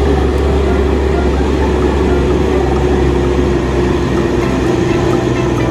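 Heavy truck engine running steadily with a deep, even drone: a dubbed-in engine sound effect laid over a toy dump truck driving along a dirt path.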